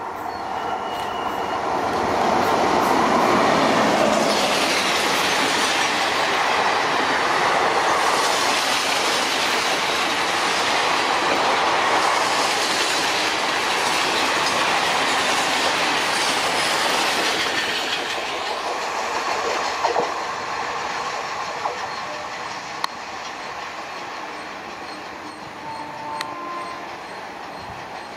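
A passenger express train hauled by a WAP-7 electric locomotive passing at speed, wheels clattering on the rails. It swells as the locomotive arrives, stays loud while the coaches go by, then fades as the train draws away, with a few light clicks near the end.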